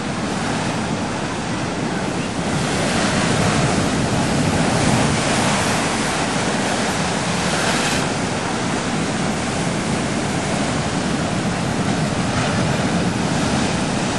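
Ocean surf breaking and washing over a rocky shoreline: a continuous rush of white water that swells louder a few seconds in.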